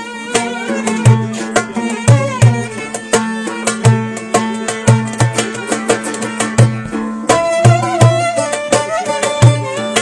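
Live Turkish folk dance music. A metal goblet drum (darbuka) is played by hand with deep bass strokes and sharp rim strokes in a quick, steady rhythm. A plucked banjo-like lute carries the melody over a held low note.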